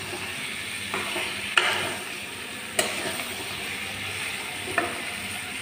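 Potato and pointed gourd pieces frying in masala in a metal kadai, a steady sizzle while a spatula stirs and scrapes them, with a few sharp clicks of the spatula on the pan.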